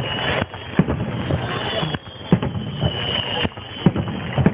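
Fireworks going off overhead, several sharp booms a second or so apart over a steady noisy rush, recorded through a mobile phone's microphone.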